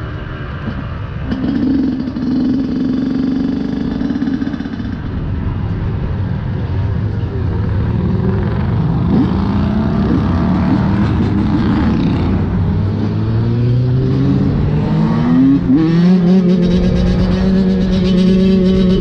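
Yamaha YZ125 two-stroke single-cylinder engine running under the rider, its pitch climbing over a few seconds in the second half and then held high and steady with the front wheel up in a wheelie.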